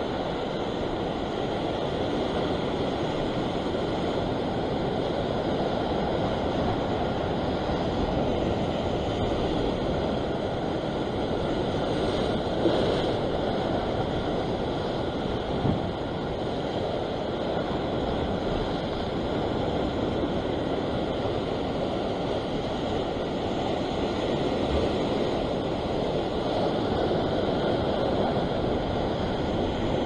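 Ocean surf churning and washing against a rocky shore in a steady rush, with wind on the microphone. Two brief knocks stand out near the middle.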